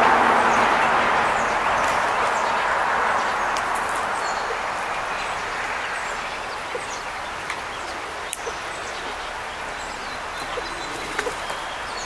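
A broad rushing noise that fades away over the first few seconds, with short, high songbird chirps scattered throughout.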